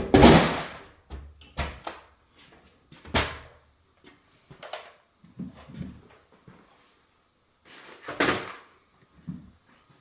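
Irregular knocks, bumps and scrapes as plastic shelving and parts are lifted and pulled out of a side-by-side refrigerator's freezer compartment, with the loudest knocks at the start, about three seconds in and about eight seconds in.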